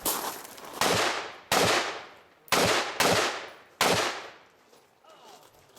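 Six rifle shots fired in quick, uneven succession over about four seconds, each followed by a short echo.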